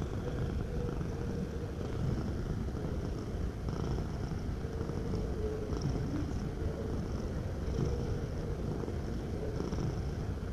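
Domestic cat purring: a steady low rumble.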